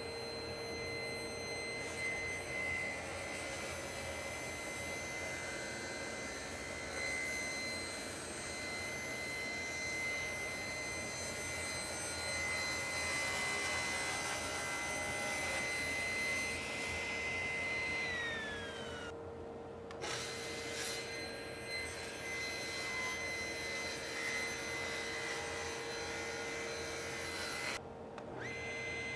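Woodworking power tool running with a steady whine over a noisy hiss. About 18 seconds in the whine slides down in pitch, and the sound breaks off abruptly twice.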